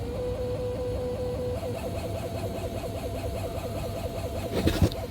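Strange mid-pitched whine inside a DS7 Crossback, warbling rapidly several times a second, holding steady for about a second and a half, then warbling again, over a low road or engine rumble. A short thump near the end is the loudest sound.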